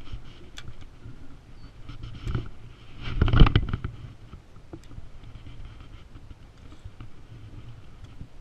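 Spinning reel being cranked and rod and tackle handled in a small boat, with a louder burst of rustling and knocks about three seconds in.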